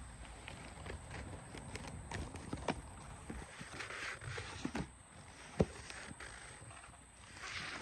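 Irregular knocks and clicks, the loudest about five and a half seconds in, over a steady high-pitched hiss.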